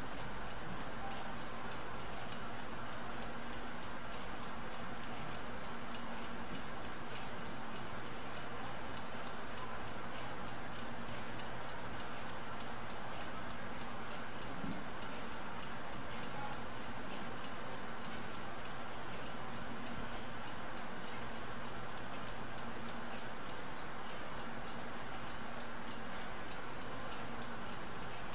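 Laboratory stopclock ticking steadily and evenly as it times the run, over a faint steady hum.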